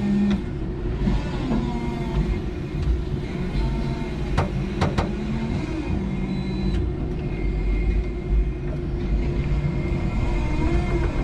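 5-ton electric forklift at work: a steady motor hum over a low rumble, with tones that come and go as the motors run. Two sharp knocks about half a second apart near the middle, typical of forks or pallet clunking.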